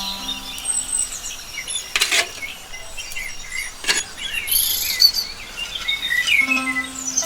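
Birds chirping and calling, with two sharp knocks about two and four seconds in.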